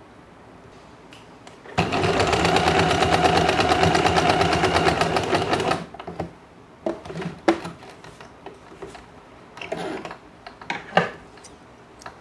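Usha Janome Dream Stitch electric sewing machine stitching a seam, its needle running at a rapid, even rate for about four seconds before stopping abruptly. Afterwards a few scattered light clicks.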